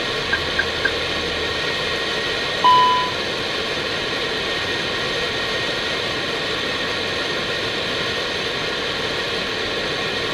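Steady rush of airflow and engine noise inside an Airbus A319 cockpit on approach. About three seconds in comes a single short electronic tone that fades over about half a second.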